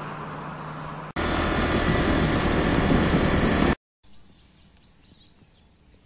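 Low roadside traffic hum, then an abrupt cut to loud, even rushing road and wind noise from a moving vehicle for about two and a half seconds. It cuts off suddenly into quiet outdoor ambience.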